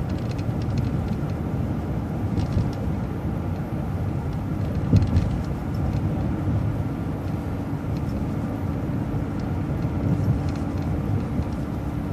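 Inside a moving city bus: steady engine and road noise with a few brief rattles, and a steady hum that comes in about halfway.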